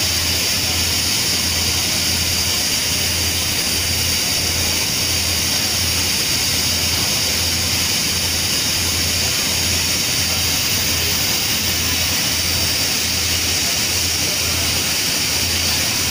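Steady loud hiss of steam escaping from a standing steam locomotive's boiler, with a low throbbing pulse underneath at about twice a second.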